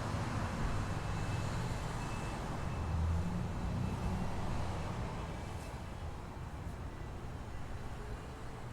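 Street traffic: a low vehicle rumble that fades off about halfway through.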